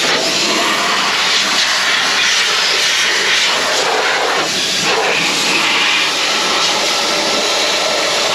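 Compressed air from a Sullair compressor rushing out of a blow-off nozzle in a steady, loud hiss, blowing harvest dust off a combine.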